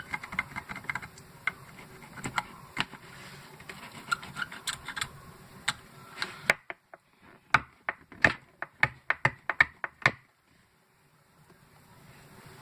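Hand tool clicking and scraping against a battery's casing as it is dug at: irregular sharp clicks, coming in a quick run near the middle, then stopping.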